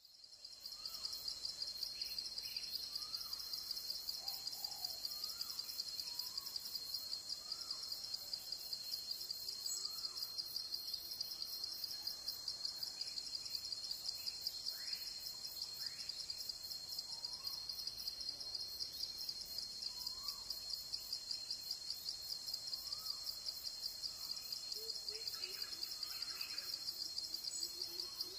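Tropical forest ambience: a steady, high-pitched insect chorus pulsing rapidly, with faint bird calls repeating now and then.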